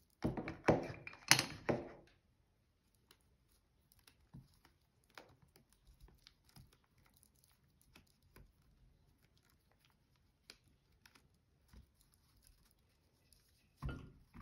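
Handling noise from craft work: a few loud rustles and clicks in the first two seconds, then faint scattered taps and rustling, with another short rustle near the end.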